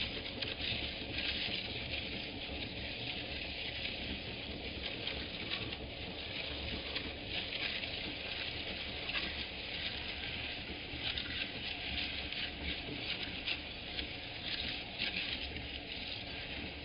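Potato chips crunching and crackling as a motor-driven meat grinder's auger crushes them, a dense continuous crackle over the grinder's steady low motor hum.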